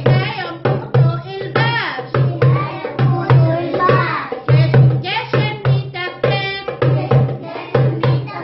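A woman singing while she plays a darbuka (goblet drum) with her hands, a steady rhythm of deep bass strokes and sharper strokes between them.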